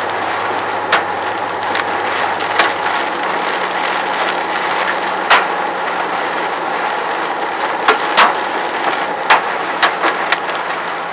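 Hailstones striking a car's body and glass, heard from inside the car: scattered sharp knocks, roughly one a second and irregular, over a steady rush of rain. A vehicle's low engine hum runs underneath.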